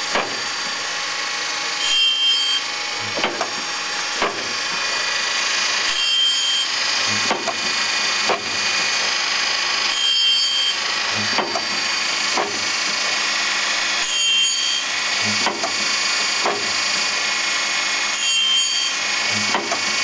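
Loroch automatic band saw sharpening machine running, its grinding wheel working the saw blade's teeth in a repeating cycle, with a louder, brighter grinding pass about every four seconds and light clicks of the indexing mechanism in between.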